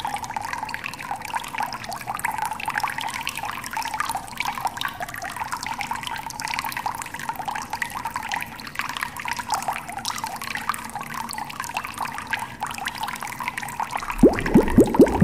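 Aquarium water trickling and bubbling steadily, thick with tiny pops. About a second before the end, a quick run of sharp low knocks begins.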